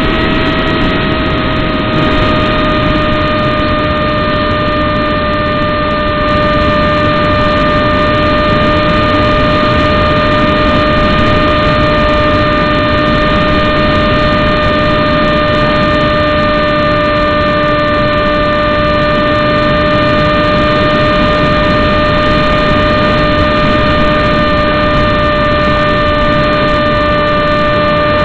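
Striker RC plane's electric motor and propeller heard from its onboard camera: a loud, steady whine over rushing air, its pitch easing down slightly at first and then holding constant.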